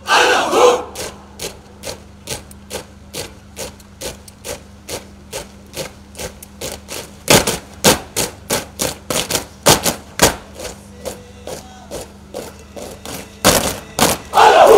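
Boots of a squad of marching cadets striking a paved parade ground in step, sharp stamps about two to three a second, heavier for a few seconds in the middle. A shouted drill command rings out at the start and again near the end.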